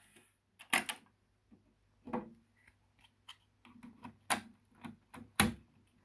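Clicks and clunks from a Nakamichi Cassette Deck 1 as its controls and cassette door are worked by hand: about half a dozen separate mechanical clicks, the loudest a sharp clunk near the end, over a faint low hum.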